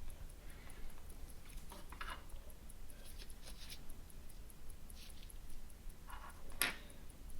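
Faint small clicks and scrapes of watchmaker's tools handling a pocket watch, with one sharper click near the end. Behind them the running pocket watch movement ticks faintly and evenly, about five ticks a second.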